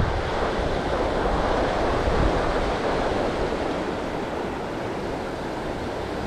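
Steady rush of flowing river water, with wind buffeting the microphone low down for the first second or so.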